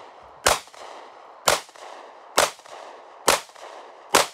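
Semi-automatic pistol fired five times at a steady pace, about one shot a second, each crack followed by a short echo.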